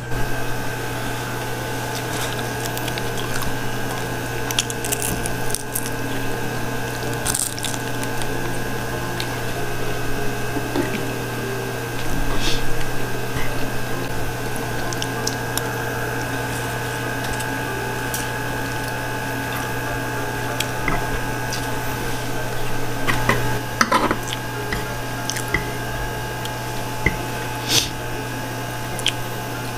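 Close-miked eating sounds: wet chewing and squishing of noodles, with scattered short clicks as a metal fork scrapes and taps on a wooden board, over a steady low hum.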